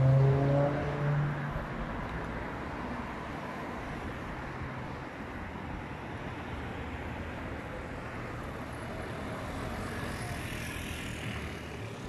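City street traffic: a motor vehicle's engine passes and fades within the first second or so, then a steady wash of road traffic noise, with a car's tyre hiss swelling and passing near the end.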